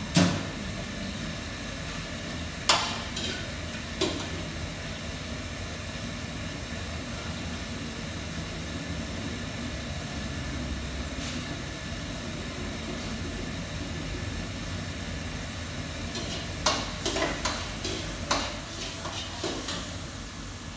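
Steady hiss of a working commercial kitchen, with sharp metal clanks of pots and utensils: a few early on and a quick run of them near the end.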